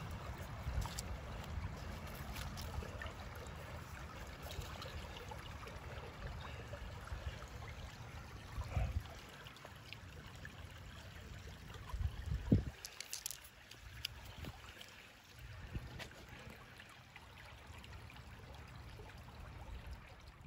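Shallow creek water trickling over gravel, under a low rumble, with scattered light clicks and a louder thump about twelve seconds in.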